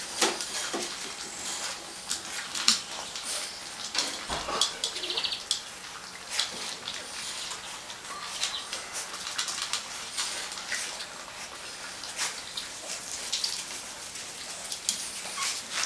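French bulldog puppies eating dry kibble from a stainless-steel feeding dish and moving about on tiles: an irregular patter of clicks and crackles from crunching kibble, pellets knocking against the metal dish and claws on the tiles, with a dull bump about four seconds in.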